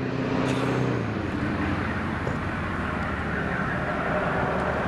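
Passing road traffic: a steady wash of rumble and hiss, with a vehicle engine's hum fading out about a second in.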